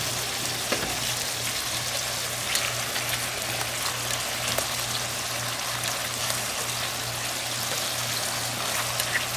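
Tteokgalbi meat patties sizzling in fat on a flat steel griddle: a steady hiss with small scattered pops and crackles. A steady low hum runs underneath.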